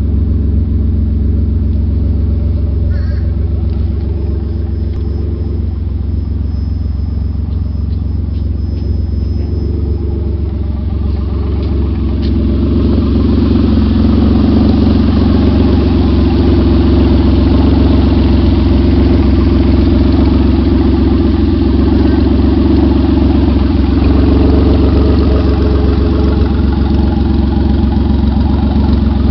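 Third-generation Mitsubishi Eclipse V6, freshly swapped into a second-generation Eclipse, running at a steady idle. It grows somewhat louder about twelve seconds in.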